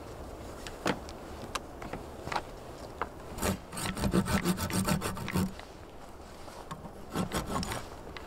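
Folding hand saw cutting into a small pine log: a run of quick back-and-forth strokes lasting about two seconds, then a few more strokes near the end.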